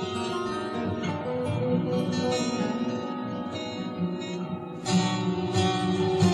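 Layered guitars playing on a lo-fi cassette multitrack recording, the parts bounced ping-pong style onto one tape. About five seconds in the playing grows louder, with sharper plucked attacks.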